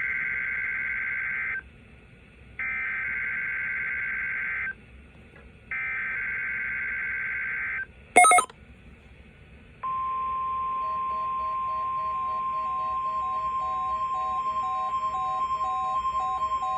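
NOAA Weather Radio Specific Area Message Encoding (SAME) header: three bursts of warbling digital data tones, each about two seconds long with a second's gap between them. A short loud beep about 8 s in, then a steady alert tone from about 10 s on, with quick repeated beeps over it.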